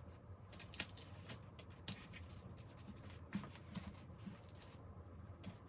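Faint, scattered light taps and rustles of small craft materials being handled and placed.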